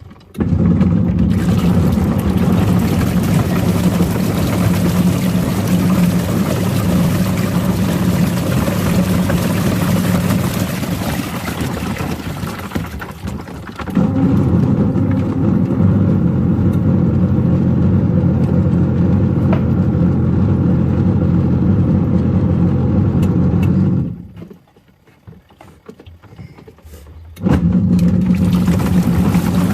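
Washing machine running a wash with Lego toys inside: a steady motor hum over churning noise. It weakens and picks up again around the middle, stops for about three seconds near the end, then starts again, the stop-and-start of a wash cycle.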